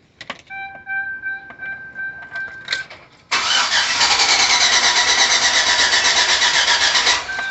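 2005 Chevrolet Suburban Z71: a few steady electronic warning chimes as the key is turned, then about four seconds of the starter cranking the engine in an even rhythm without it firing, stopping abruptly. The engine cranks but won't start, a fault that began after a fuel fill-up. The owner reports good fuel pressure, a new fuel pump and a new starter.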